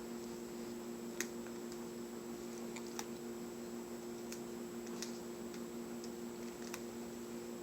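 Scattered light clicks and snaps, about five of them with the loudest about a second in, as hair is braided and worked with small rubber bands, over a steady low hum.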